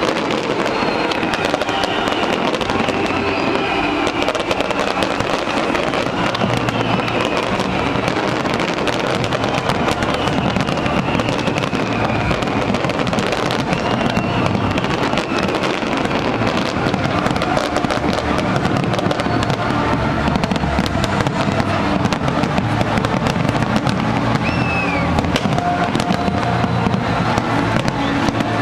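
Large fireworks display going off without a break: dense, overlapping crackling and popping of many shells, with a few whistling glides.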